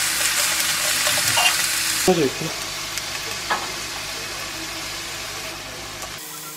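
Beef strips and whole garlic cloves sizzling in a frying pan, turned with chopsticks. The sizzle drops away sharply about two seconds in and goes on more faintly.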